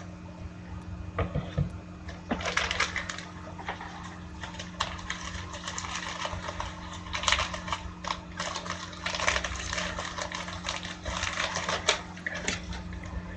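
Irregular clicking and rustling in uneven clusters, as of hands working at a desk, over a steady low electrical hum.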